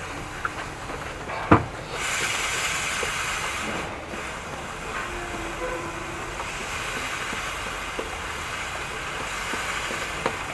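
Aerosol chain lube hissing as it is sprayed onto a motorcycle's rear drive chain while the wheel is turned by hand: a long spray with a brief break about four seconds in, stopping shortly before the end. A single sharp click about one and a half seconds in is the loudest sound.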